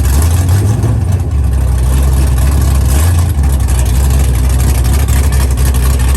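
Car engine running at a steady low speed, with slight shifts in pitch about a third of a second in and again about three seconds in.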